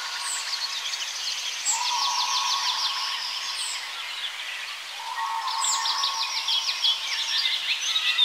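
Birdsong: chirps and rapid trills, the same pattern coming round about every three and a half seconds.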